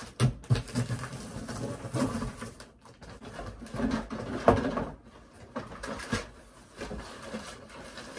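A cardboard box being opened and the plastic playset pieces inside handled and unpacked: irregular rustling of packaging with scattered light knocks of plastic, the sharpest knock about halfway through.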